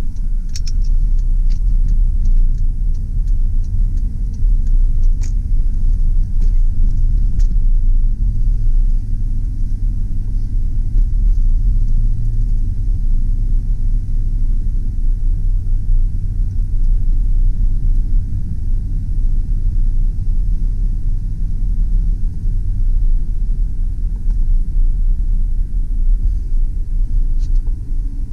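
Inside the cab of a 2003 GMC Sierra 2500HD with its 6.0-litre V8, driving: a steady low engine and road rumble, with a few light clicks in the first several seconds.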